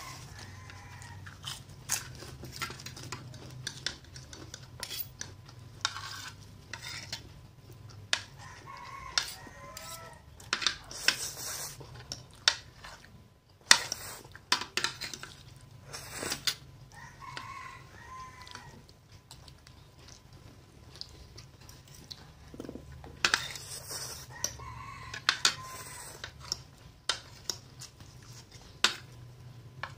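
Metal spoons and forks clicking and scraping on a ceramic plate during a meal. A rooster crows in the background several times, roughly every eight seconds.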